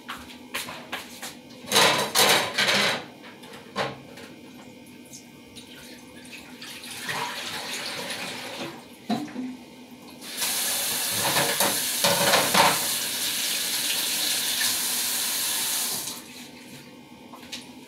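Kitchen sink tap running hard for about six seconds from roughly ten seconds in, the water splashing, with a plastic tube knocking against the sink as it is emptied and rinsed. About two seconds in there is a short burst of loud clattering.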